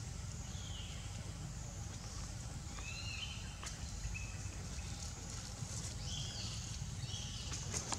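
Outdoor forest ambience: a steady low rumble and a high hiss, with several short chirping calls that arch up and then fall, and a single sharp click about three and a half seconds in.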